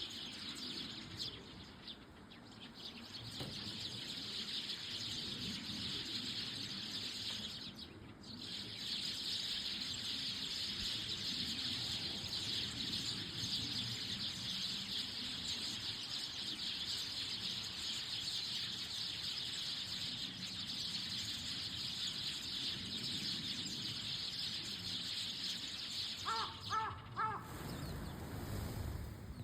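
A large flock of Eurasian tree sparrows chirping and chattering together in a dense, continuous chorus. Near the end a crow caws about four times, and the chorus stops abruptly as the flock leaves all at once.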